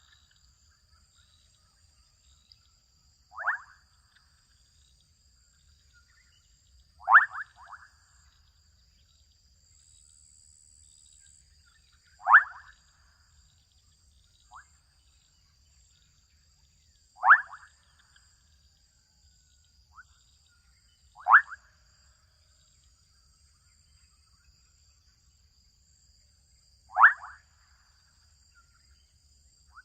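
Adolescent frogs calling: about six short, sharp calls spaced four to five seconds apart, a few followed by one or two quieter notes.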